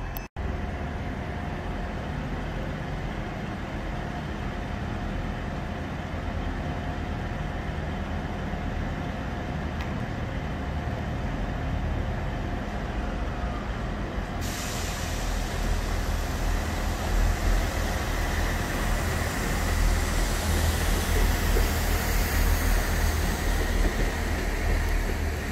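TransPennine Express Class 185 diesel multiple unit pulling out of the platform, its diesel engines rumbling and building in strength in the second half as it moves off under power. A steady hiss joins suddenly about halfway through.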